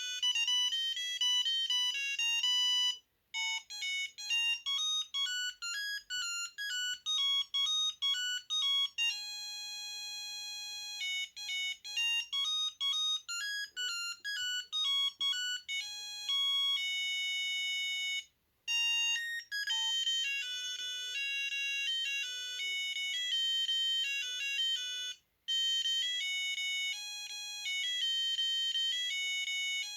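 Samsung SGH-A300 mobile phone playing electronic melody ringtones through its small speaker, several notes sounding at once. The tune stops briefly and starts again about three seconds in, near eighteen seconds and about twenty-five seconds in.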